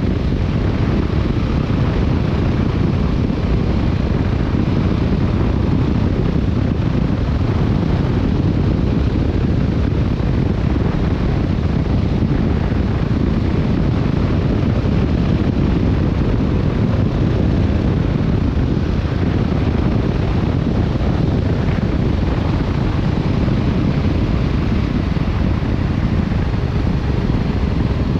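Steady rush of riding wind on the microphone of a Yamaha Tracer 7 motorcycle under way, mixed with its 689 cc parallel-twin engine running, a deep even noise with no sudden changes.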